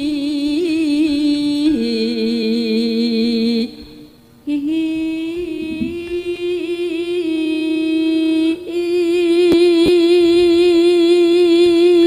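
A sinden's amplified voice sings a slow Javanese vocal line in long, held notes with a wavering vibrato. There is a short break about four seconds in, and from about eight and a half seconds in one note is held steadily.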